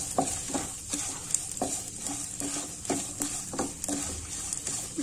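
Wooden spatula stirring and scraping a nonstick kadai as poppy seeds, cashews and raisins fry in ghee, about two strokes a second over a steady sizzle.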